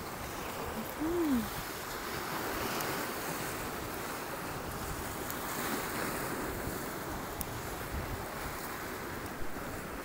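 Steady rush of sea surf on the shore mixed with strong wind on the microphone. About a second in, a short rising-then-falling hum stands out briefly above it.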